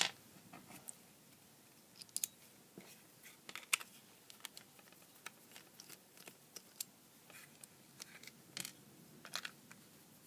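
Small screwdriver turning out the screws of a plastic plug-in power supply case: light, irregular clicks and taps of the bit, screws and plastic, with one louder click at the start.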